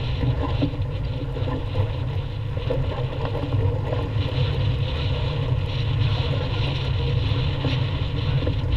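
Steady wind buffeting the microphone, with the rush of water along the hull of a sailboat under sail in choppy water.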